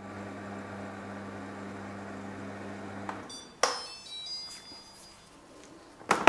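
Motor of a Thermomix-style kitchen machine stirring a cream-cheese and whipped-cream filling in its closed bowl, a steady hum that stops about three seconds in. Half a second later comes a sharp click with a brief high ringing tone, and near the end the machine's lid is handled and unlocked.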